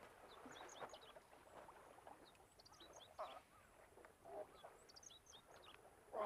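Faint outdoor ambience: waterfowl call a few times, loudest about three seconds in and again a second later, over scattered short, high bird chirps.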